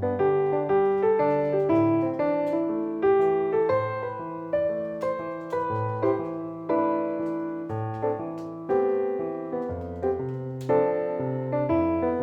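Background piano music: a gentle melody over a steady repeating bass pattern.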